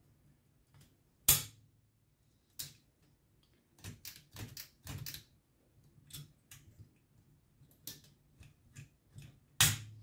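Metal clicks and clacks from an Olivetti Lettera 22 typewriter's carriage being handled, a run of small irregular clicks with two sharp, much louder clacks, one about a second in and one near the end.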